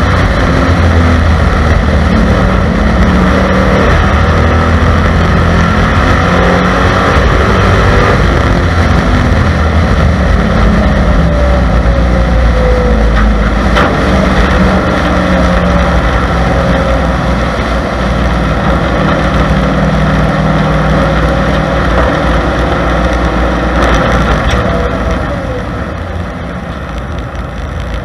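Stock race car engine running at speed, heard from inside the car with its pitch rising and falling through the turns. It gets quieter near the end as the car eases off.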